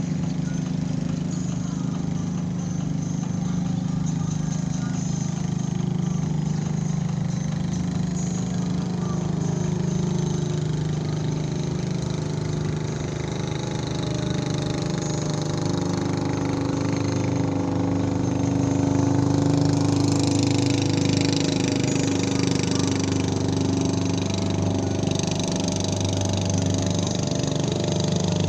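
An engine running steadily with a constant low hum. It grows a little louder, with more hiss, about two-thirds of the way in.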